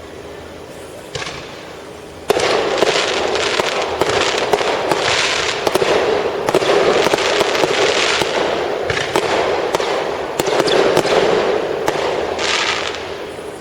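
Fireworks going off: after a quieter start, a sudden loud burst about two seconds in leads into a dense run of sharp cracks and crackling that eases off near the end.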